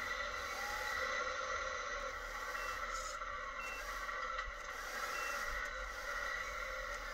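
Tamiya 1:14 Mercedes-Benz Arocs RC model truck running slowly, its MFC-01 sound unit playing a steady simulated diesel truck engine through a small on-board speaker.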